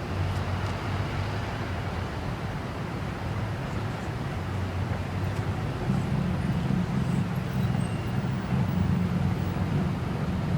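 Steady low hum of a running car, which grows a little louder about six seconds in.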